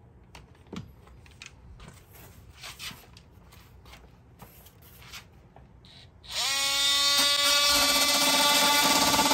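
Oscillating multi-tool switched on about six seconds in. It rises briefly in pitch as it spins up, then holds a steady, loud whine. Before that there are only faint handling clicks and rustles.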